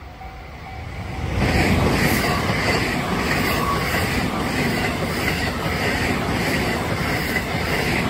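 JR West special rapid electric train passing close by at speed. Its rumble builds quickly about a second in, then runs on with the wheels clacking rhythmically over the rail joints.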